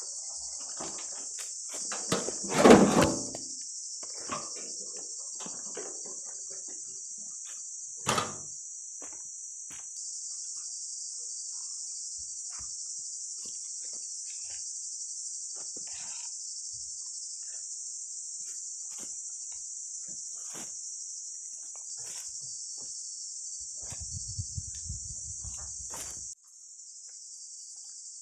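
Insects chirring steadily in a high, even band, with scattered knocks and thuds of a wooden log being handled, the loudest about three seconds in and another about eight seconds in, and a brief low rumble near the end.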